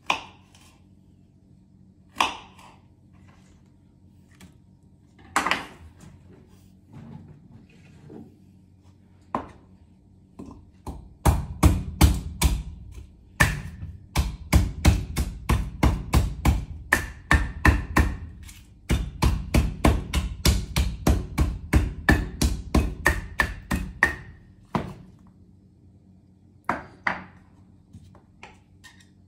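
A few single knocks of a knife chopping on a wooden cutting board. Then a wooden pestle pounds in a wooden mortar: heavy, even thuds about three a second for some thirteen seconds, with a short break in the middle. A couple more knocks come near the end.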